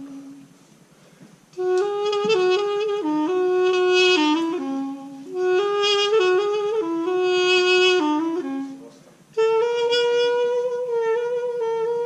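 Solo folk melody played on a small hand-held wind pipe, in stepwise phrases. It starts about one and a half seconds in, breaks off briefly around five and again around nine seconds, then settles on a long held note near the end.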